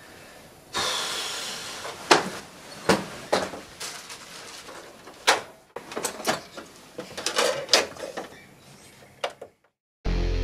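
Rustling, then a string of sharp knocks and clicks as a portable CD boombox is handled and its controls are pressed. Loud distorted electric-guitar music cuts in abruptly near the end.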